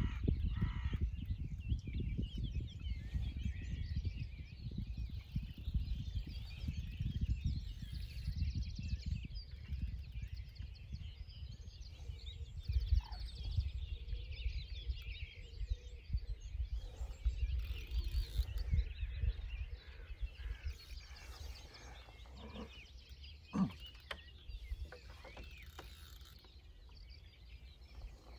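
Wind rumbling on the microphone, heavy at first and easing about two-thirds of the way through, with small birds chirping and singing throughout. A single light knock comes near the end.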